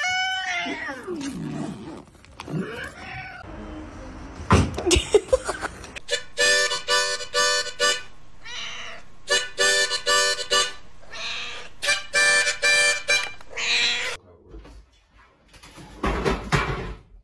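A cat yowls once in a long, falling meow. Then a harmonica plays a run of short phrases of held notes, with brief pauses between them.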